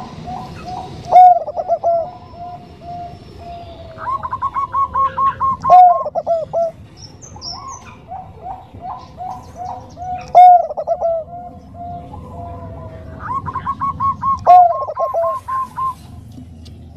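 Bangkok-bred zebra dove (perkutut) cooing. It sings four song phrases about four to five seconds apart, each a run of quick staccato coo notes with one louder rolling note.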